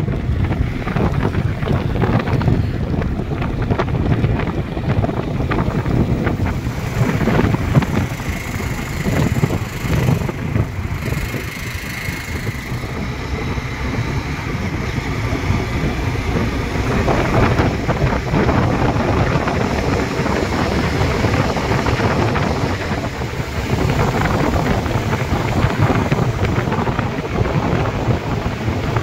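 Wind rushing over the microphone of a moving motorcycle, a loud, steady, deep rush with the bike's engine and road noise underneath.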